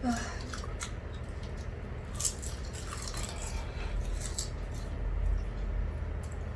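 Eating sounds: a few small scattered clicks and crackles of utensils and chewing, over a steady low hum.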